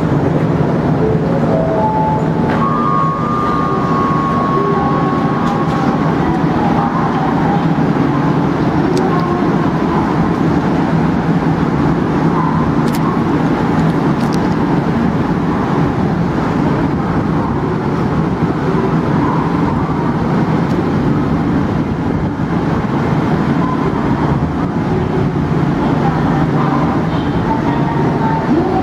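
Steady din on a railway platform around a JR West 221 series electric train, with a low hum. There is a short high tone about three seconds in.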